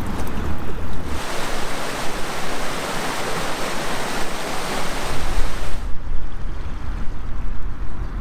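Wind buffeting the microphone with a deep rumble; about a second in it gives way to the steady rush of a stream splashing over rocks, which stops abruptly near six seconds, leaving wind rumble and lighter lapping water.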